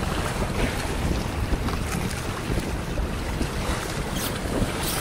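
Wind buffeting the microphone over the steady rush of sea water along the hull of a sandeq, a Mandar outrigger sailing canoe, under sail.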